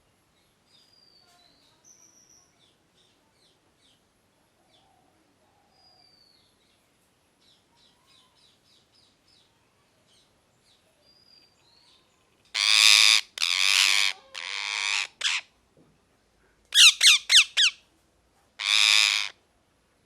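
Ringneck parrot calling: soft, faint chirps and whistles at first, then about halfway in a series of loud, harsh squawks. Three long squawks come first, then a quick run of short ones, then one more.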